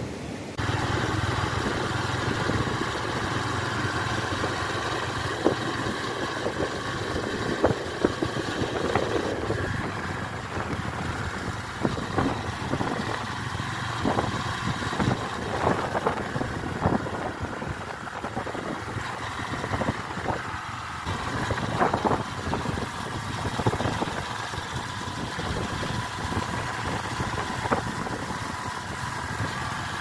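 Motorcycle engine running steadily while riding along a dirt road, with frequent short knocks and rattles through the ride.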